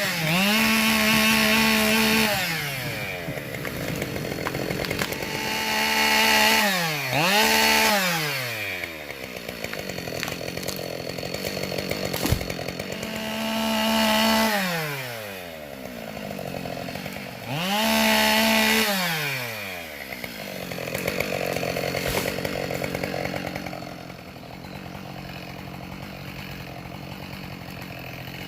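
Chainsaw running at full throttle in four spells, its engine note dropping away and climbing back between them as the throttle is eased and reopened while felling wood; it settles to a lower, quieter running in the last few seconds.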